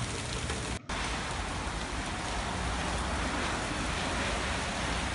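Rain from Hurricane Florence falling steadily on a waterlogged yard and puddles, an even hiss that drops out for a split second about a second in.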